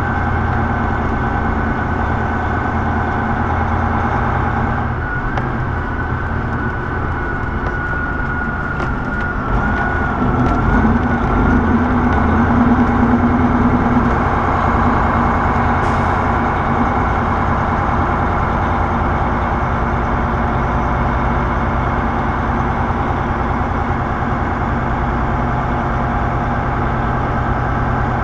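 Diesel semi truck's engine and road noise heard from inside the cab, a steady drone. A thin wavering high tone comes through for a few seconds, and the drone swells a little louder about halfway through.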